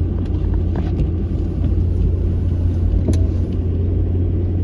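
Steady low rumble of a vehicle's engine running, heard from inside its cab, with a few faint clicks.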